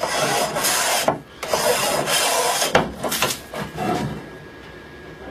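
Hand plane shaving along a wooden board: two long strokes, then a couple of shorter ones, going quieter after about four seconds. The board's raised middle is being planed flat.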